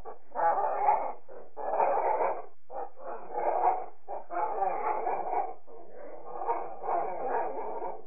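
Monster sound effect designed from parrot calls: a run of harsh animal calls, each about half a second to a second long, with short gaps between them.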